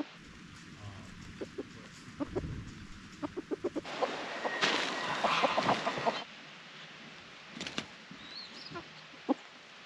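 Backyard chickens clucking softly as they forage, with a quick run of short clucks in the first few seconds. About four seconds in there is a louder two-second stretch of rustling noise, and a few scattered clucks follow near the end.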